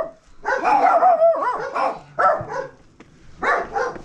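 A dog barking and yelping in short high calls, with a longer wavering whine in the first second and a brief lull near the end.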